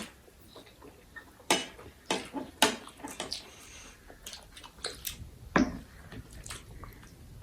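Dishes and cutlery clinking and knocking on a meal table, a dozen or so separate sharp taps at uneven intervals, with a short soft hiss a little past the middle.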